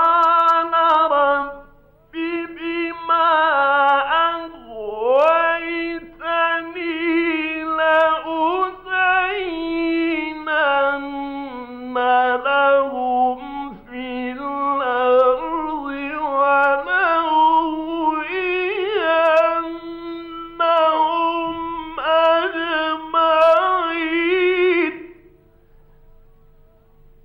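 Male Quran reciter chanting a long melodic phrase of Quranic recitation (tajweed) with sliding, ornamented held notes and short breaks for breath. He stops about 25 seconds in. A steady hum and the narrow sound of an old 1950s radio recording run underneath.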